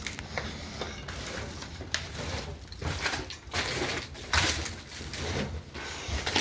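Footsteps crunching and scuffing over debris on a littered floor: a string of uneven knocks and crunches, one louder one a little past the middle.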